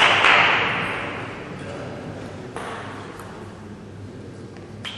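Spectators applauding and calling out in a sports hall between points of a table tennis match. The applause starts sharply and fades away over about two seconds into a low murmur of voices, and a single sharp tap follows near the end.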